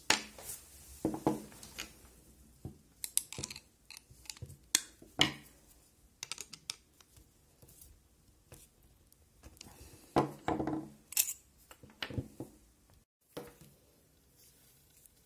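Irregular clicks, clinks and short rattles of small metal parts being handled: a cutter blade, washers and a screw fitted together and tightened with pliers and a screwdriver.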